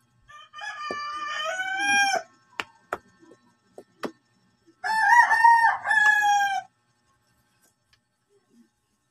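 A rooster crowing twice, each crow about two seconds long, with a few sharp knocks in between.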